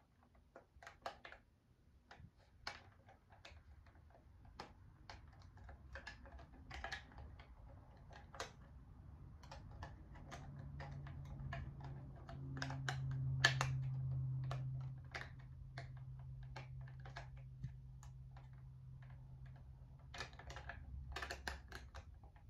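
Irregular small clicks and taps of the talking alarm clock's buttons being pressed and the plastic clock being handled. A low hum swells about ten seconds in and fades a few seconds later.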